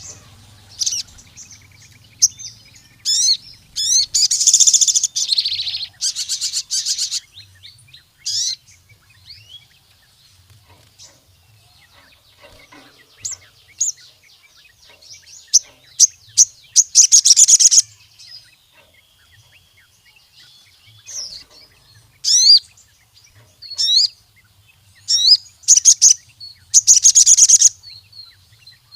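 A sogon, the ruby-cheeked sunbird, singing in bursts of sharp chirps and fast, high, twittering trills, with quieter pauses between the runs. The longest, loudest runs come about a third of the way in, near the middle and near the end.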